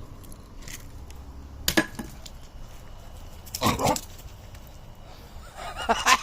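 A dog gives a short growling bark about halfway through, then starts barking again near the end, with a sharp knock a little earlier. The dog is warning another dog away from a bone.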